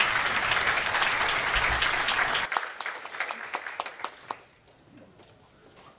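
Audience applause: dense clapping that thins to scattered single claps about halfway through and dies away.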